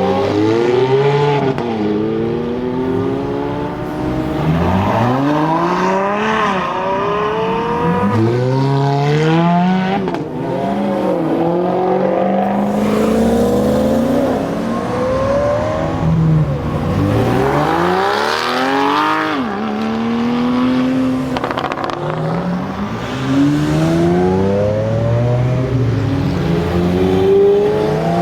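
Supercar engines accelerating hard, again and again, each pull's pitch climbing and then dropping back as the gears change.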